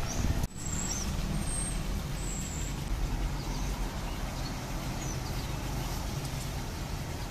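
Steady low background rumble, with a few faint high chirps in the first half.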